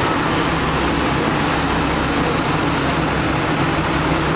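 Boat engine running steadily, a low, even drone that does not change in pitch or level.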